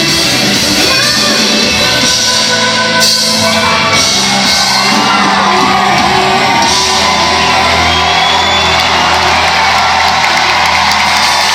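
Live pop band music with singing, the audience shouting and whooping over it.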